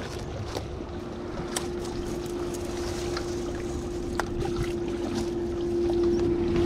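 A steady single-pitched motor drone that grows gradually louder, with wind rumbling on the microphone and light clicks and rustles of steps through grass and over rocks.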